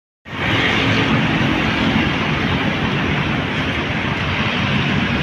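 Steady road traffic noise from a busy street, starting abruptly just after the start.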